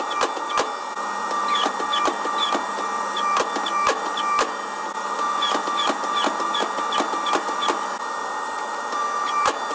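Forging press running with a steady machine whine and rapid, irregular clicks and knocks several times a second as it squeezes a red-hot steel billet, forged from a large ball bearing, flat between its dies.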